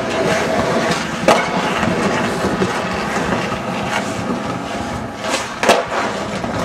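Skateboard wheels rolling steadily over pavement, with two sharp wooden clacks from the board, one about a second in and one about a second before the end.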